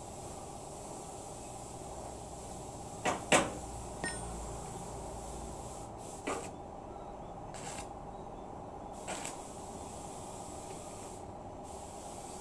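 Scattered sharp metal clicks and knocks of a hand tool against a sheet-steel car bumper, the loudest pair a little after three seconds in, over a steady faint hum.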